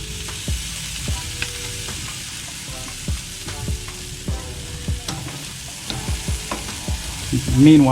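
Steaks searing on a grill grate over direct fire, a steady sizzling hiss with scattered light knocks. This is the final hot sear of reverse-seared steaks.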